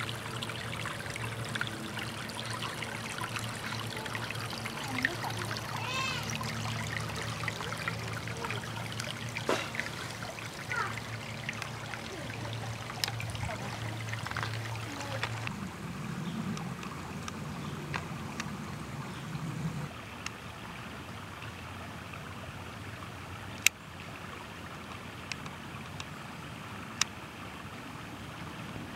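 Shallow creek water trickling over rocks, a steady running sound. A low hum sits under it for the first two-thirds, and a few sharp clicks come near the end.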